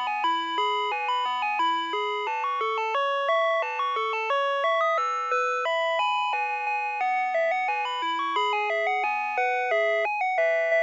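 Electronic chime tune of the kind an ice cream truck's music box plays: a quick melody of bell-like notes, with more than one note sounding at a time.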